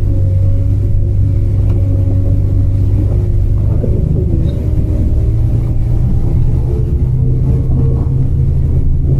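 A car on the move: steady engine and road rumble, its engine note drifting slightly in pitch, with wind noise rumbling on the microphone.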